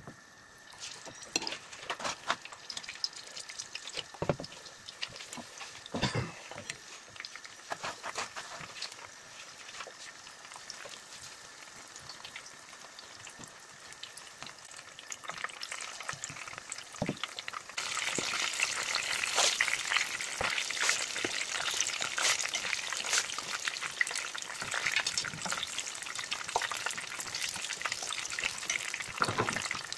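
Breaded pieces frying in shallow hot oil in a frying pan: a steady crackling sizzle, with a few sharp pops in the first several seconds. A little past halfway the sizzle turns louder and denser.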